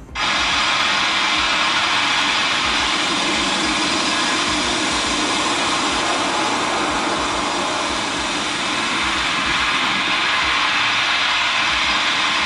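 Sea waves breaking and washing over a shingle beach under a pier: a steady rushing roar of surf that cuts in suddenly.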